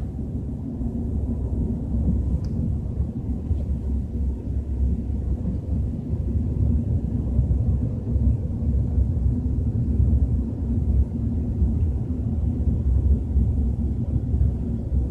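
Low, steady rumble inside a BMW 320i's cabin while driving at about 30 to 40 km/h, with a faint steady hum above it: the strange rumbling noise the owner is trying to trace. A short click right at the start.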